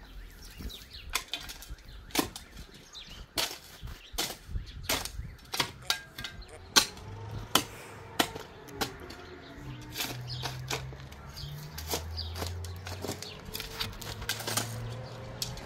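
A series of sharp knocks or taps at an irregular pace, about one or two a second.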